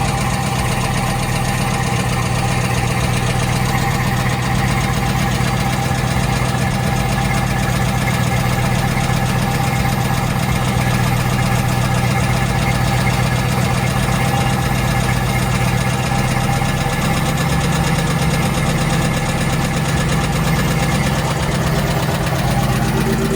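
LS-swapped GM V8 engine idling steadily.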